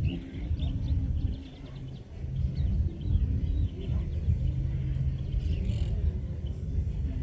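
Distant amplified party music, heard mostly as a booming bass line of held low notes that shift every second or so, with birds chirping over it.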